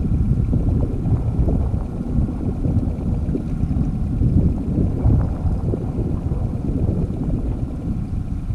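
Wind buffeting the microphone on a small fishing boat, an uneven low rumble, with a faint steady hum of the boat's motor underneath.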